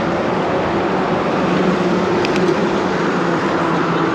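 City street traffic heard from a moving bicycle: a steady rush of vehicle noise with a low engine hum that swells slightly about two seconds in, and a few faint ticks around the same moment.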